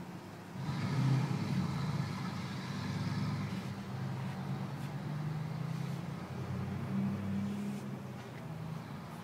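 A motor vehicle's engine running. It comes in about half a second in, holds steady, and eases off near the end.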